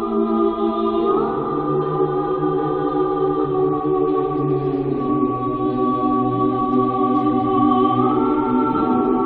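Background music: a choir singing slow, sustained chords, moving to a new chord about a second in and again near the end.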